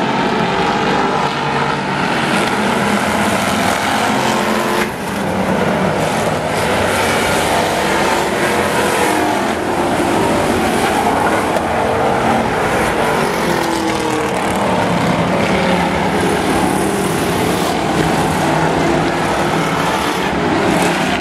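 Several demolition race cars' engines running hard together around an oval track, their engine notes rising and falling as they pass.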